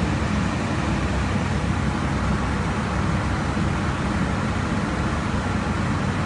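Steady roar of a fighter jet in high-altitude cruise, heard from inside the cockpit: an even rush of engine and airflow noise, heaviest in the low end, with no change in pitch or level.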